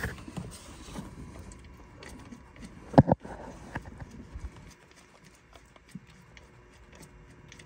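Scattered small clicks and knocks of wrenches and fittings being handled while drain plugs are refitted on a marine engine, with one sharp knock about three seconds in.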